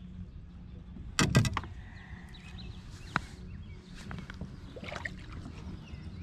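A short cluster of sharp knocks and rattles on a plastic fishing kayak about a second in, then a single sharp click a couple of seconds later, over a steady low hum.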